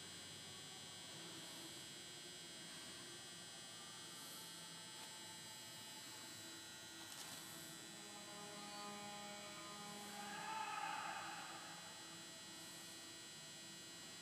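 Steady low electrical hum from the machine, with faint steady high-pitched whine tones over it and a short swell of louder noise about ten seconds in.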